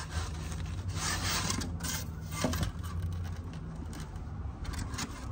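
Rubbing and scraping of plastic plug trays of flower seedlings being handled and shifted, with a few small knocks.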